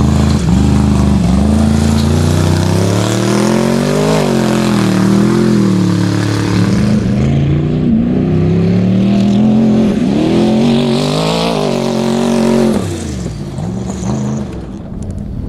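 Twin-turbo off-road race truck engine revving hard, its pitch climbing and dropping again and again as the throttle is worked. The sound falls away about thirteen seconds in.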